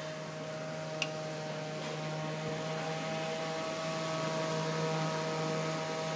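Delta EFB1212HH 120 mm 12 V dual-ball-bearing brushless computer fan running steadily: an even hum and whine from the motor over the rush of air through its blades. A faint tick about a second in.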